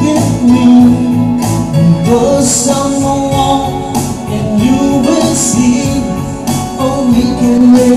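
Live reggae band playing, with a man singing into a microphone over keyboard and a steady beat.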